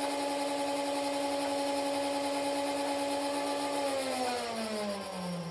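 Nerf Ultra Amp flywheel blaster's battery-driven motors revved up, holding a steady pitched hum. About four seconds in the rev trigger is let go and the pitch falls as the flywheels spin down.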